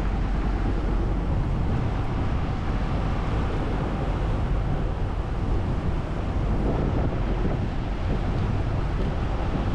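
Steady rush of wind on the microphone over a small tour boat's engine and churning water, with no distinct events.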